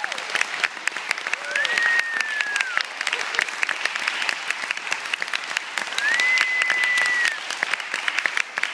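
Concert-hall audience applauding steadily after a piano performance. Two long, high, held tones ring out over the clapping, one about a second and a half in and another about six seconds in.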